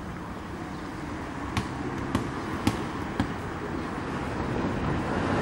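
Four sharp knocks, evenly spaced about half a second apart, over a steady outdoor background noise that slowly grows louder.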